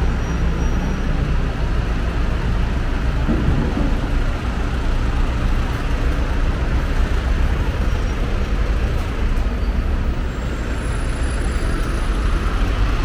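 Steady rumble of road traffic with heavy vehicle engines, unbroken and even in level.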